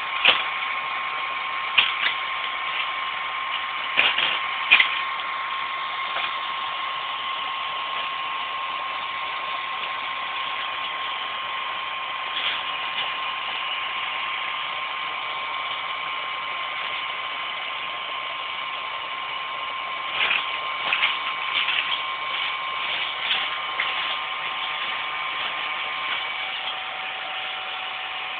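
Electric heat gun running steadily, a blowing hiss with a high motor whine, heating and melting out the male mould inside a cured carbon-fibre shell. Scattered sharp clicks and crackles come a few seconds in and again about two-thirds of the way through.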